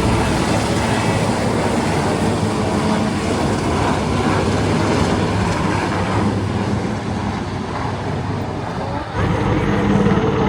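Loud, steady engine noise, with an abrupt change in the sound about nine seconds in.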